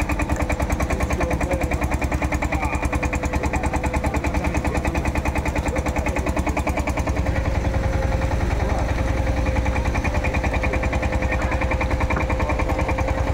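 Fishing boat's engine running with a fast, even thudding and a steady hum.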